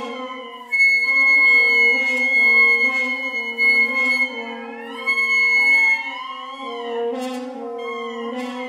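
Wind quintet of flute, oboe, clarinet, French horn and bassoon playing long, overlapping held notes: a high steady tone over sustained low notes, with wavering, sliding pitches in between. The sound thins out briefly just after the start, and a couple of short, sharp noisy accents come near the end.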